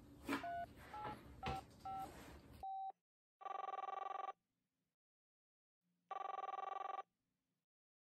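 Telephone dialing: four quick touch-tone beeps, then the call ringing twice over the line, each ring about a second long with a fluttering buzz.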